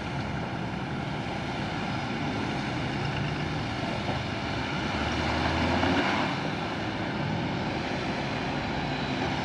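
Jeep Wrangler Rubicon's engine running at low crawling speed as it picks its way over rock and sand, swelling briefly about five to six seconds in.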